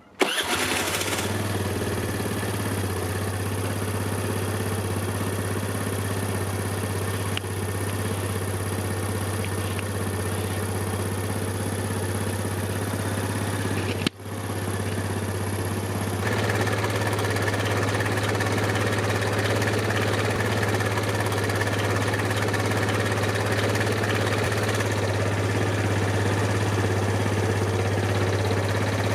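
Suzuki Let's 4 scooter's small 49 cc single-cylinder four-stroke engine running steadily at idle. The sound drops out briefly about halfway through, then carries on slightly louder.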